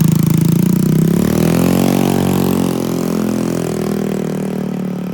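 Homemade stand-up scooter with an automatic (matic) motor-scooter engine, its engine note rising as it pulls away and then fading steadily as it moves off.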